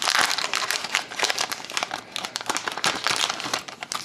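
Wrapper of a 2011-12 Upper Deck SPx hockey card pack being crinkled and torn open by hand: a dense, irregular crackle.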